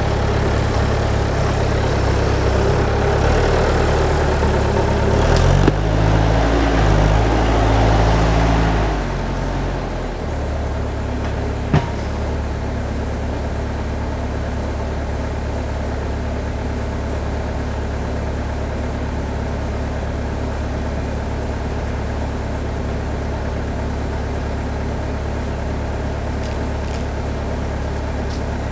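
Engine of a log-moving machine running with shifting pitch and more load for the first nine seconds or so, then settling to a steady idle. A single sharp knock comes a little before twelve seconds.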